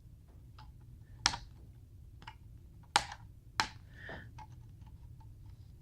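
Small plastic clicks and light ticks of a push pin working the locking tab of the climate-control module's ribbon-cable connector: three sharper clicks, the last two close together, among fainter ticks.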